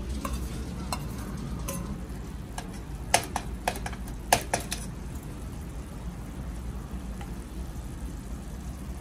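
Wooden spatula stirring chicken and basil in a camping pot, with a quick run of sharp taps of the spatula against the pot about three to five seconds in, over the sauce simmering.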